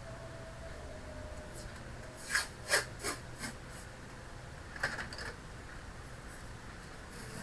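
Hands working inside an opened all-in-one computer: four quick rasping scrapes a little over two seconds in, then a couple more just before the five-second mark.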